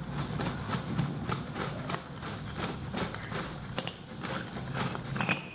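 Screw-on bottom cup of an aluminium oil catch can being unscrewed by hand: a quick regular run of small metallic clicks, about four a second.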